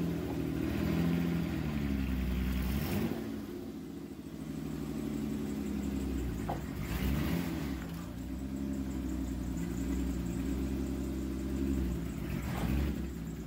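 Honda Accord 3.0-litre V6 running, its engine note rising and falling back several times as it is revved. The engine has a known misfire.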